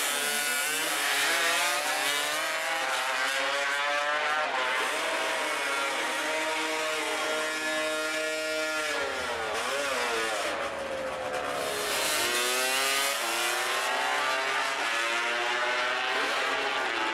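Two two-stroke drag motorcycles launching and accelerating hard down the strip. The engines climb in pitch and drop back at each gear change several times, the two engines' notes crossing each other.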